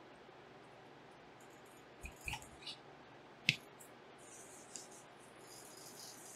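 Small clicks and taps of graphics-card parts being handled while the card is taken apart, with one sharper click about three and a half seconds in, then soft high-pitched rustling.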